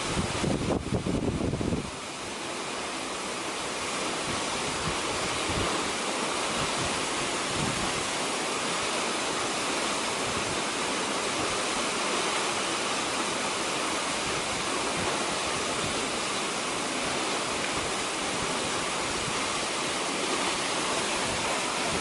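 Waterfall: a steady, even rush of falling water. Wind buffets the microphone with a low rumble for the first two seconds or so.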